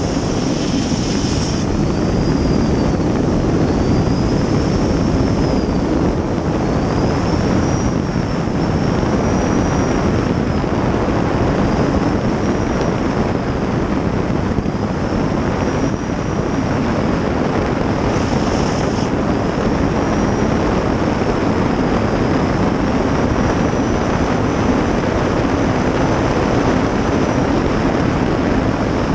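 2000-hp gas turbine of a 23-foot river-racing jet boat running flat out, a loud steady rush of turbine and water with a faint high whine that rises and falls gently every couple of seconds.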